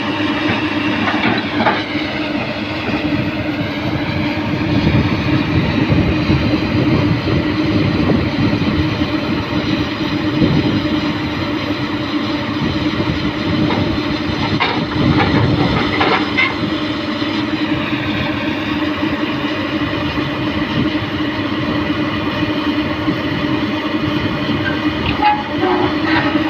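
Komatsu PC200 hydraulic excavator working: a steady diesel engine drone with a pitch that dips and rises twice as the load changes, and a few clanks.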